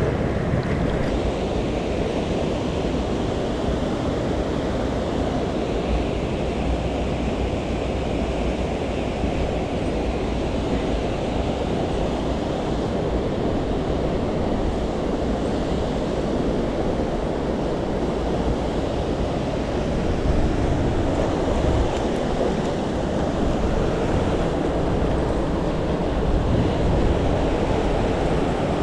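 Steady rushing of a mountain stream's water over rocks, an even low roar with no breaks.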